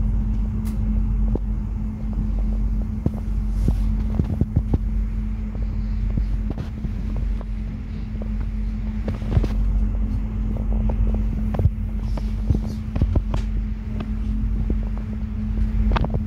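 Double-deck regional express train heard from inside the carriage: a steady low rumble with a constant hum, broken by many short, sharp clicks as the wheels cross points and rail joints on the station approach.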